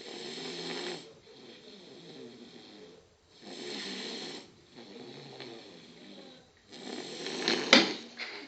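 Beagle puppy snoring like a person: three slow snoring breaths about three seconds apart, each louder on the in-breath and quieter on the out-breath, the third rising to a sharp, loud peak near the end.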